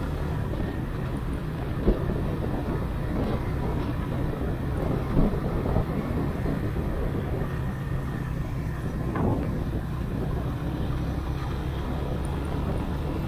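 Motorcycle being ridden: a steady engine and road noise, with a few brief thumps about two, five and nine seconds in.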